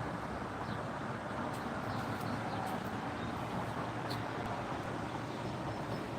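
Steady background noise, with a few faint light clicks scattered through it.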